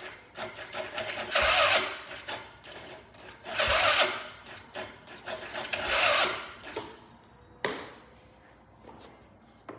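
An ATV engine being cranked in short bursts about two seconds apart, three times, without catching. The engine won't start. A single sharp knock follows near the end.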